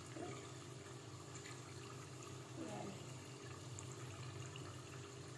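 Faint, steady sizzle of rice turon deep-frying in hot oil on high heat, over a steady low hum.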